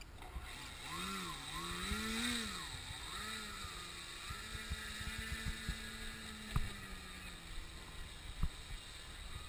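RC model airplane's motor and propeller droning in flight, its pitch rising and falling over the first few seconds, then holding steady. Wind noise on the microphone throughout, with a few sharp clicks in the second half.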